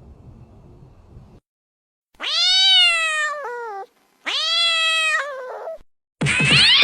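A cat meowing twice: two long, drawn-out meows, each rising and then falling in pitch. Just before the end, a loud, noisier sound with gliding pitches cuts in.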